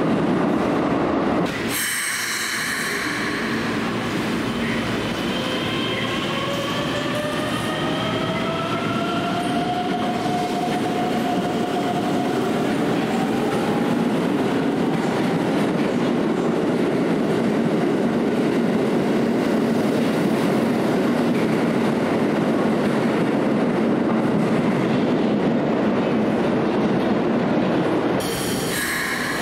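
Keikyu 1500-series electric train pulling out of an underground station: its traction motors whine, rising in pitch as it accelerates, over the steady rumble of the cars rolling past. The sound changes abruptly about a second and a half in and again near the end.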